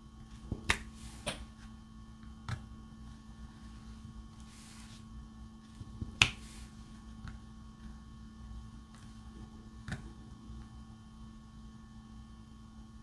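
Scattered sharp clicks and taps, about five of them with the loudest about six seconds in, from a diamond-painting drill pen working resin drills on the canvas and drill tray, over a faint steady hum.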